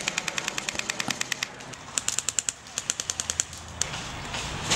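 Airsoft guns firing on full auto: a rapid burst of clicking shots, about a dozen a second, stops about a second and a half in. A second burst follows at about two seconds, then a single shot near the end.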